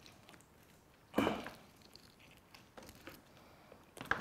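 Gloved hands tearing and cutting a roast duck leg with a knife: faint crinkling, squishing and small clicks, with one louder burst about a second in and a sharp click near the end.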